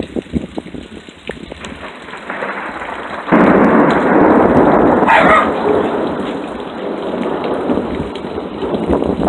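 Steady rain falling; about three seconds in, a loud thunderclap breaks in suddenly and rumbles on for several seconds, slowly fading.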